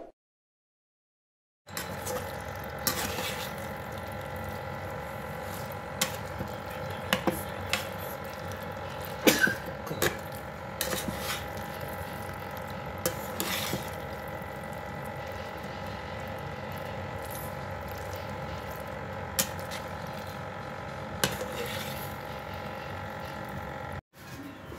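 Chicken and sausage cooking in a frying pan while a spatula stirs them: a steady hiss and hum with scattered clicks and scrapes of the spatula against the pan.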